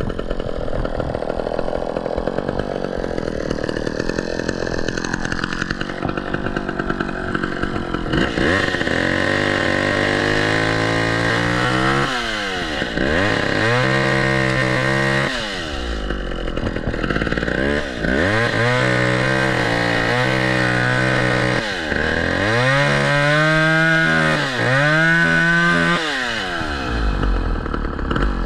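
Gasoline chainsaw cutting wood. At first it runs steadily; from about a third of the way in, its engine speed dips and climbs again and again as the chain works through the cut.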